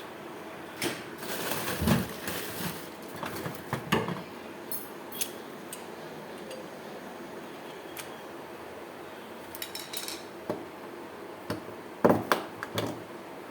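Scattered metallic clinks and knocks of things being handled, in two bunches, over a steady low hum.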